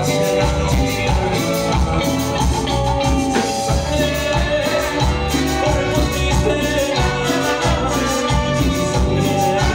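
A live cumbia band playing loud: a male singer over horns, guitar and drums with a steady dance beat, heard from within the crowd.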